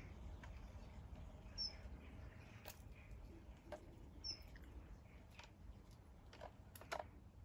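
Quiet outdoor background with a short high bird chirp twice, about three seconds apart, and a few light clicks scattered through.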